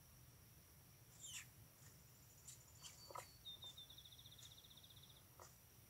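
Near silence with a few faint high bird chirps and one rapid, evenly pulsed trill lasting under two seconds about halfway in, over a thin steady high tone.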